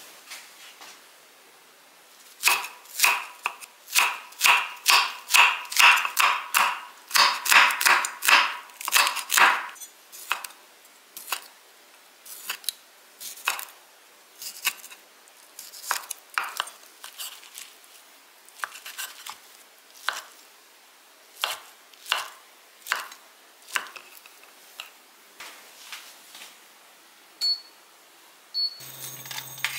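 Kitchen knife chopping on a wooden cutting board, slicing ham sausages: a quick run of strokes about two a second, then slower, spaced single cuts. Near the end the induction hob gives two short high beeps.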